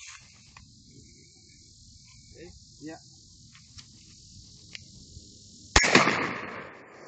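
A single shotgun shot about six seconds in, fired at a thrown clay target, its report echoing away over about a second. Insects buzz steadily underneath.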